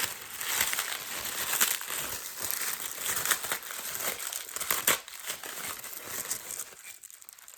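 Wrapping being crinkled and torn off a securely wrapped gift by hand: a steady rustling crackle with sharper crackles here and there, dying down near the end.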